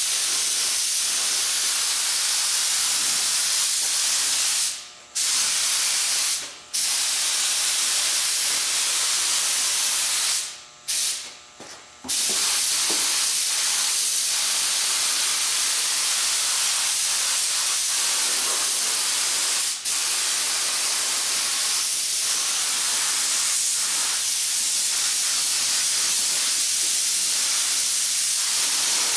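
Compressed-air paint spray gun hissing steadily as it sprays etching primer. The hiss cuts off abruptly for under a second four times in the first half as the trigger is let go, then runs on without a break.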